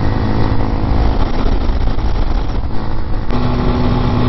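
RPS Hawk DLX 250's fuel-injected, air-cooled single-cylinder four-stroke engine running at road speed. The engine note changes abruptly about three seconds in and then holds steady.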